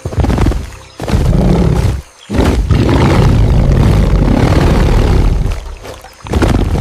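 A large wild animal roaring in rough, loud bursts, one short, one about a second in, a long one lasting over three seconds, and another near the end.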